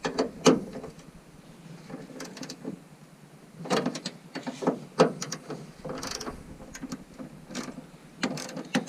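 Hand wrench and ratchet working on truck bolts: scattered metallic clicks, clinks and knocks of tools on the truck's metal, coming in irregular clusters.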